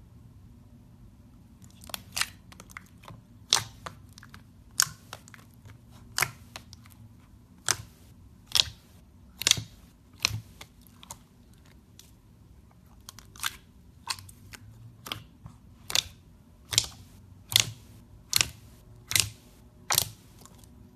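Slime being pressed and worked by hand, giving a run of sharp pops and clicks, roughly one or two a second, starting about two seconds in.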